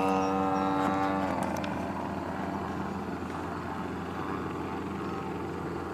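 A steady motor hum with a clear pitch fades away over the first second or so, leaving an even background noise with a faint low hum.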